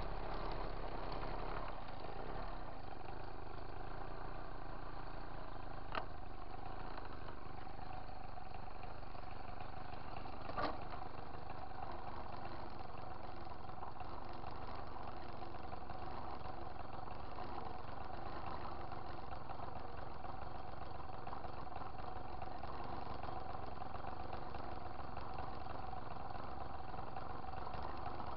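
Moped's small two-stroke engine idling steadily while the bike stands still. Two short sharp clicks come through, about six seconds in and again some four seconds later.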